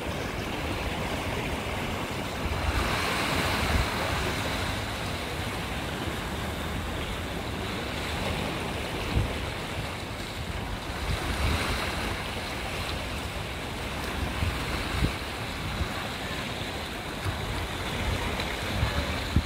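Sea waves breaking and washing over rocks at the foot of a cliff: a continuous surf wash that swells louder a few times, with wind buffeting the microphone.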